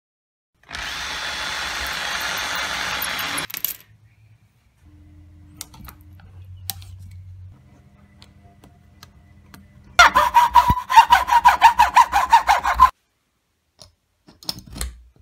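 Power tools at work on a woodworking project: one runs with a steady noise for about three seconds near the start, and a second runs in rapid short pulses with a high whine for about three seconds later, the loudest sound.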